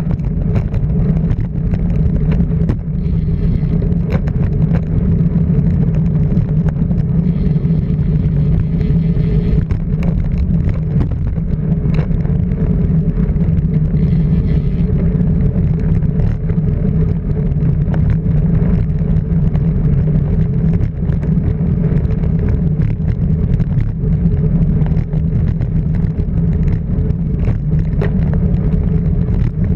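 Car engine running at a steady speed, a constant drone with road noise and scattered short knocks.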